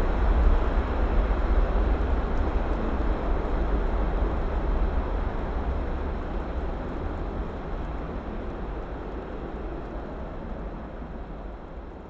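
Engine noise of a departing jet airliner, a steady deep rumble with a hiss above it, fading away evenly as the aircraft climbs out.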